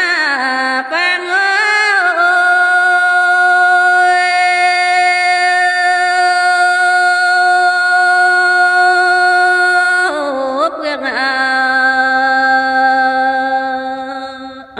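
A woman singing a Dao hát lượn folk song solo, without accompaniment: a quick ornamented turn, then one long note held for about eight seconds, and a new wavering phrase about ten seconds in that fades near the end.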